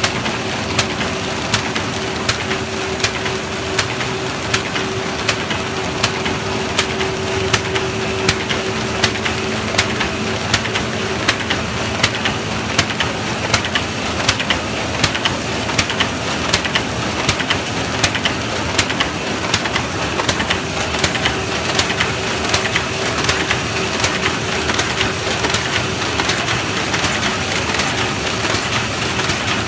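Square-bottom paper bag making machine running at speed: a steady mechanical clatter with a regular sharp clack about one and a half times a second, over a faint steady hum.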